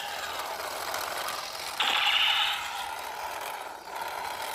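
Battery-powered toy gun's firing mechanism running, a fast ratcheting rattle of its gears, louder for a moment about two seconds in.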